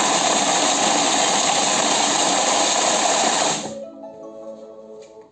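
Thermomix TM6 blade running at speed 5, loudly grinding Petit Beurre biscuits into crumbs, then cutting off suddenly about three and a half seconds in. A short chime of several stepped tones follows as the program ends.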